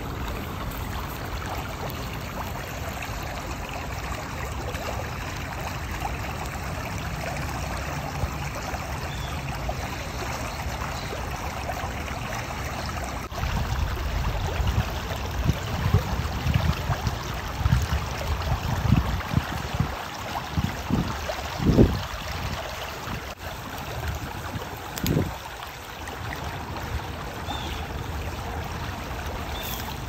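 Creek water flowing and rippling, a steady rushing. Through the middle stretch, irregular low rumbles come and go, the loudest about two-thirds of the way in.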